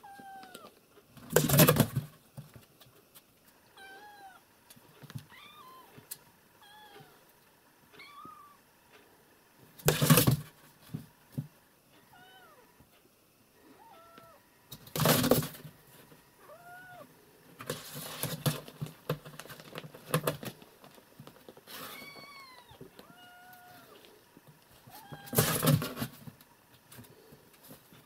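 Kittens about six weeks old mewing over and over in short, high calls. Five or six louder rustling scuffles come between the calls.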